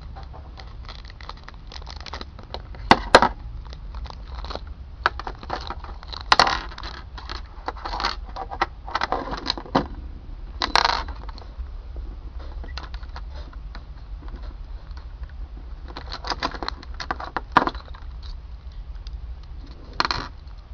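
Parts of a Metal Fight Beyblade and their packaging being handled: scattered small plastic and metal clicks and clinks, with a few louder knocks, about three, six and eleven seconds in and near the end.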